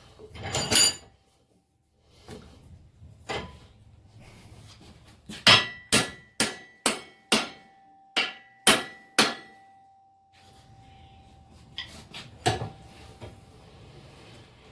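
Hammer blows on metal: a run of about nine sharp strikes at roughly two a second, each leaving a short metallic ring. Lighter knocks come before and after, as a new forged spring is driven into place on a blacksmith's post vise.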